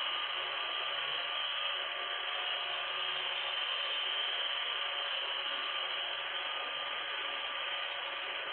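A machine running steadily, giving an even, hissy whirr.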